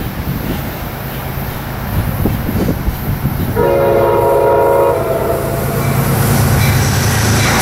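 A Metro-North push-pull commuter train passes close by, with the rumble of its GE P32AC-DM diesel locomotive. About three and a half seconds in, a train horn sounds one steady blast lasting about a second and a half.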